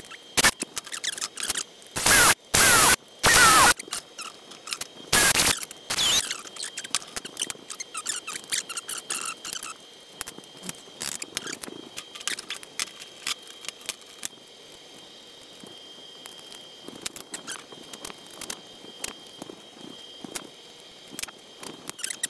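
Cordless drill run in short bursts, four times in the first six seconds, its motor whine bending in pitch. After that come scattered clicks and clatter of small metal parts and sheet-aluminium pieces being handled.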